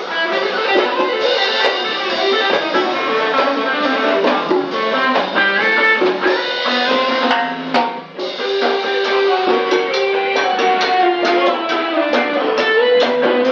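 Live Latin Caribbean band playing instrumental music, with guitar, upright bass and drum kit over a dance rhythm. There is a momentary break about eight seconds in.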